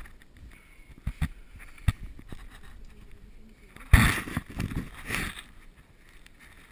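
A caver's body and gear knocking and scraping against rock while crawling through a narrow cave passage: a few sharp knocks, then a louder rustling scrape about four seconds in.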